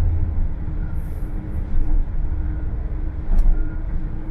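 A steady low engine rumble with a faint hum over it.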